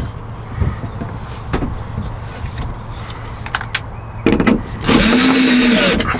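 Cordless drill running briefly about four seconds in, then for about a second near the end, its motor pitch dipping and rising, with a few sharp clicks and knocks before it.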